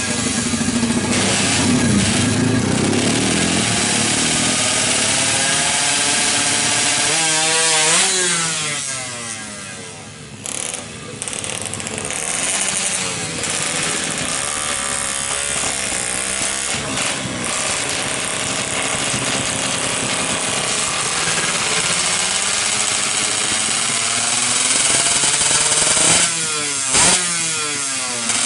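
Yamaha F1ZR two-stroke engine, bored to 116 cc with stock carburettor and stock exhaust, being revved: the pitch climbs and falls off again about eight seconds in, and there are several quick rev blips near the end.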